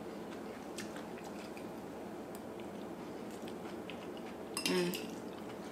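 Faint, scattered clicks of metal chopsticks against a bowl over steady room noise, with a short voiced sound from one of the tasters about four and a half seconds in.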